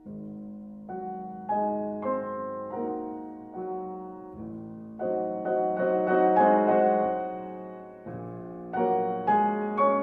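Piano music, with notes and chords struck about once a second.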